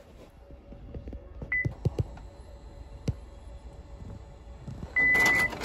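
Office printer working: a faint steady hum with a few clicks and a short high beep, then near the end a louder burst of mechanical noise with a long high beep.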